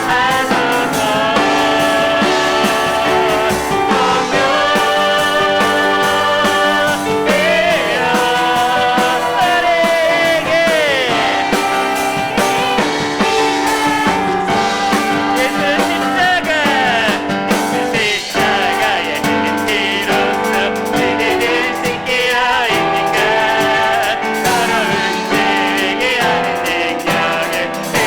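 Live worship band playing a praise song: piano and drums accompanying vocalists who sing sustained, wavering melody lines.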